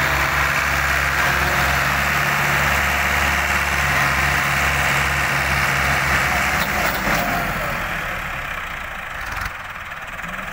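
Massey Ferguson tractor's diesel engine working hard under heavy load, pulling a loaded sugarcane trolley so hard the front wheels lift. About seven seconds in the engine note eases off and gets quieter.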